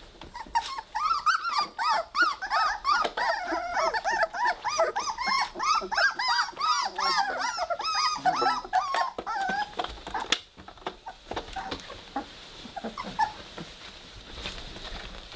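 Three-week-old Weimaraner puppies whining and yipping in quick, overlapping high-pitched calls for about nine seconds, then fainter scuffling on their bedding.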